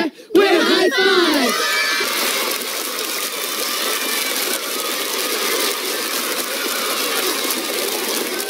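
A few voices slide down in pitch together in the first couple of seconds. Then a crowd of young children cheers and shouts for the rest of the time.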